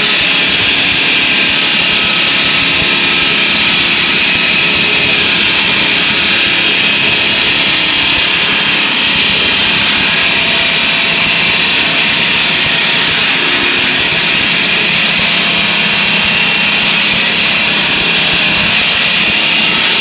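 Automatic gantry cutting machine's circular saw blade cutting, a loud, steady, hissing whine that holds unbroken throughout.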